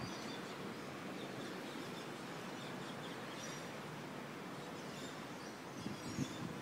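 Steady city background noise, with faint, short bird chirps a few times.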